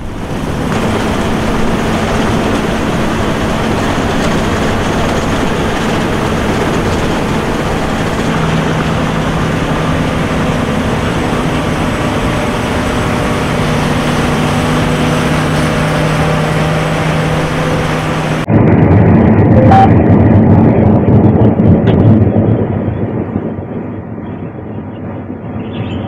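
Heavy diesel engine noise running steadily, with a low hum that shifts pitch partway through. A little past halfway it cuts abruptly to louder, more muffled engine and rumble noise, which eases off near the end.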